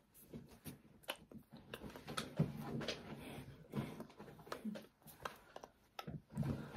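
Mouth and hand sounds of a person signing without speaking: many short lip smacks and clicks, a few brief low breathy grunts, and hands tapping and rubbing against each other and the clothing.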